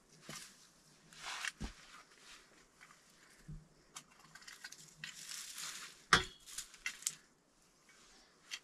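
Soil or compost being scraped and shifted by hand tools, rustling and crunching in short irregular bursts. Two sharp knocks cut through, the louder one about six seconds in.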